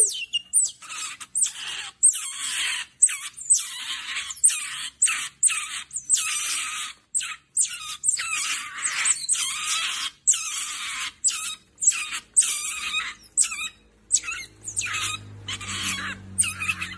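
Otter pup squealing over and over in short, shrill, high-pitched calls, about one or two a second, as it takes food from a hand: a hungry pup's food-begging calls. A faint low hum joins near the end.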